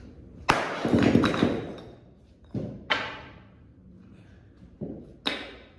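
Sledgehammer blows smashing bricks: a loud crash about half a second in, with the bricks breaking apart for over a second, then four shorter impacts in two quick pairs.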